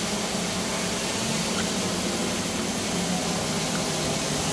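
Hubsan H501M quadcopter's motors and propellers humming steadily as it flies a circle overhead, over an even hiss; the hum shifts pitch slightly about a second in.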